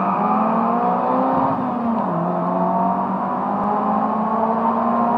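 Four-cylinder car engine heard from inside the cabin, accelerating hard: its pitch climbs, drops at a gear change about two seconds in, then climbs again.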